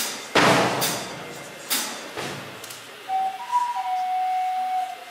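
Rock band intro: a few heavy drum-kit hits with ringing cymbal crashes in the first two seconds or so. About three seconds in, a flute melody enters with clear sustained notes.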